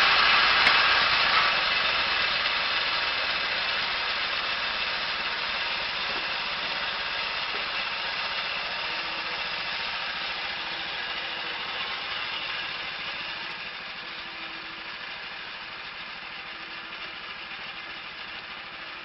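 A machine running with a steady hiss that slowly fades away.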